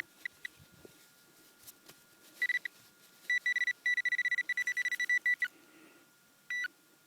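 Garrett Pro Pointer pinpointer beeping at one fixed high pitch: a couple of short beeps, then a fast run of rapid beeps for about two seconds, then scattered single beeps. The pinpointer is playing up, which the detectorist puts down to it getting tired.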